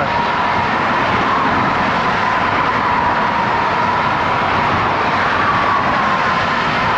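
Steady rush of wind over the microphone while cycling into a strong headwind, mixed with the hum of road traffic.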